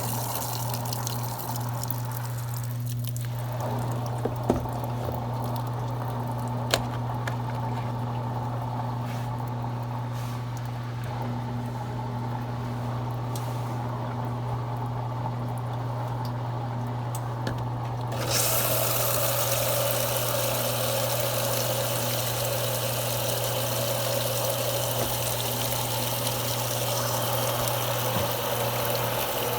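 Consul Cargo 8 kg washing machine running with water moving through it: a steady low hum, two sharp clicks a few seconds in, then about two-thirds of the way through a sudden, louder rush of water that keeps on.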